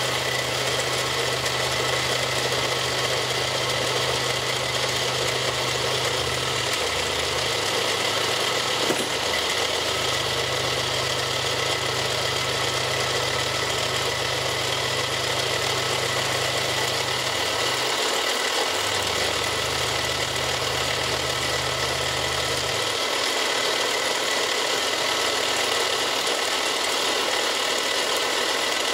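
Milling machine running with its end mill cutting into a plastic block, a steady machining noise with a high whine. Underneath, a low hum cuts out and comes back several times.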